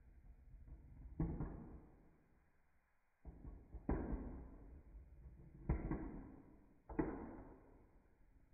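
About five separate knocks or clatters, each sudden and dying away within a second, with short quiet gaps between them.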